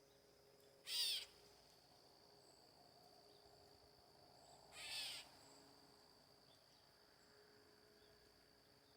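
A bird gives two short calls about four seconds apart, the second quieter, over a faint steady high-pitched insect drone.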